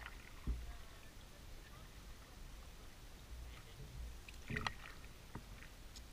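Canoe being paddled: soft paddle splashes and drips in the water, with a dull knock about half a second in and another just after four and a half seconds.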